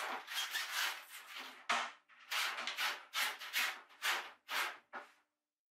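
A flexible metal wire-pulling spring rubbing and scraping as it is pushed by hand through plastic electrical conduit, in about a dozen short strokes that stop near the end.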